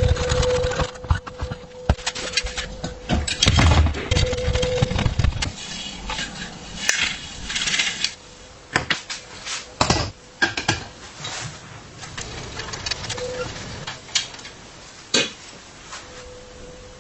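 Metal bicycle parts and hand tools clinking and knocking at irregular intervals, with rougher bursts of scraping, rumbling noise in the first few seconds.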